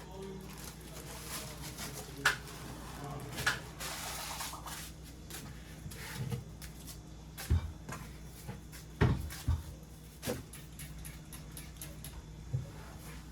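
Household handling sounds of kitchen cupboards being worked through: scattered knocks and clicks, with a few heavier thumps about halfway through.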